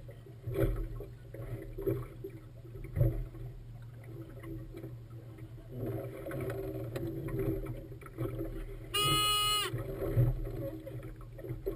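A single short blast from a handheld air horn about nine seconds in, lasting under a second: a race-committee sound signal. Under it runs steady wind and water noise on the boat, with a few dull knocks.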